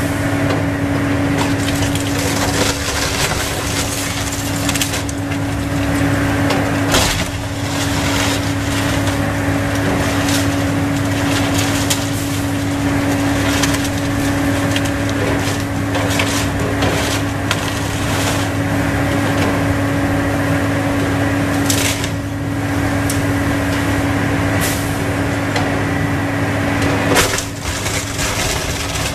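Hydraulic excavator demolishing a wood-frame house: its diesel engine hums steadily while the bucket tears and crushes timber siding and framing, with repeated sharp cracks and splintering of wood.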